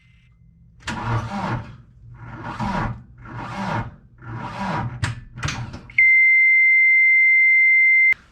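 John Deere 317 skid steer's 2.4 litre diesel engine cranking slowly in about five laboured surges roughly a second apart without catching, the sign of a jump pack too weak to turn it over. Then a steady high-pitched electronic beep for about two seconds that cuts off sharply.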